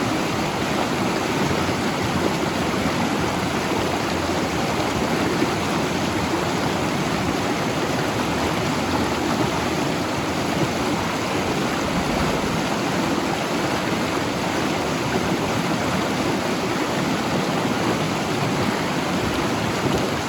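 Mountain river rushing steadily over its bed, an even unbroken flow of water.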